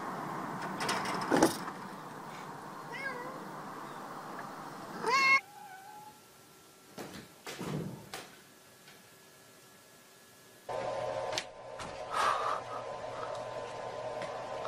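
Domestic cat meowing, with one loud rising meow about five seconds in and fainter meows elsewhere. A sharp knock about a second and a half in is the loudest sound.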